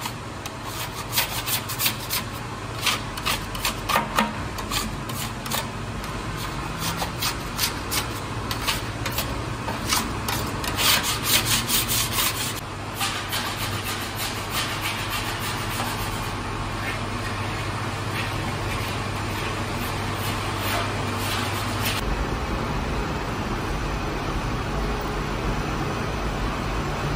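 A metal dough scraper scraping sticky bread dough off the sides of a large steel bowl in quick, repeated strokes. About halfway through, this gives way to the steady hum of a dough machine being loaded through its hopper.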